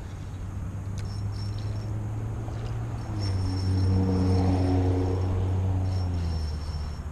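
Engine hum running steadily, with an engine note that swells louder about three seconds in and eases off again before the end, as a vehicle or machine passes close by.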